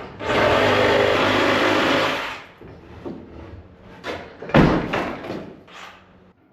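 A power saw runs and cuts for about two seconds, then a heavy thud about four and a half seconds in, with a few lighter knocks around it, as framing lumber is cut and knocked loose.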